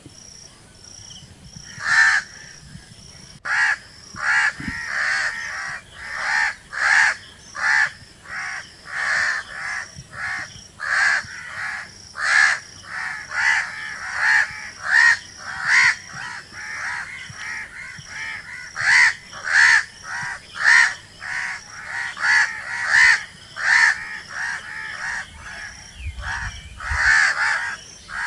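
Crows cawing over and over, short harsh caws following one another at roughly one to two a second, some louder than others.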